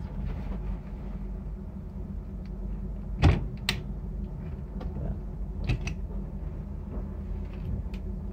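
A few sharp clicks and knocks, the loudest about three seconds in, over a steady low hum.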